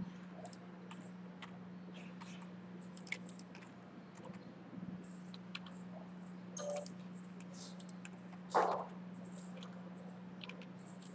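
Scattered computer keyboard taps and mouse clicks over a steady low hum, with one brief louder noise about three-quarters of the way through.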